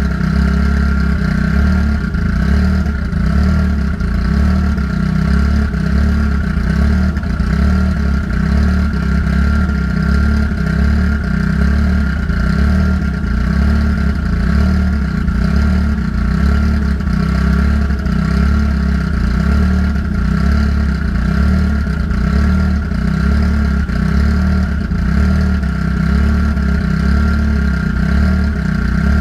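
Car engine idling steadily, running so the coolant circulates and trapped air bubbles out of the cooling system after a new radiator was fitted. A thin, steady whine sits above the low engine note.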